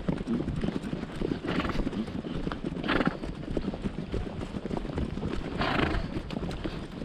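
Hoofbeats of a ridden horse moving at a run, irregular strikes throughout, with three short rushes of noise about a second and a half, three seconds and nearly six seconds in.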